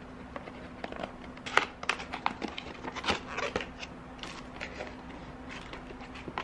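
Cardboard box of sewing thread being opened and handled: a run of quick clicks, taps and paper rustles, busiest between about one and four seconds in.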